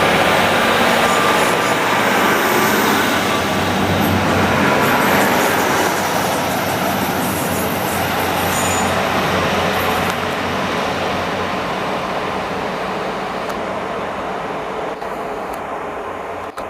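Diesel train passing through the station, its engine tone over heavy wheel-and-rail rumble, slowly fading as it moves away.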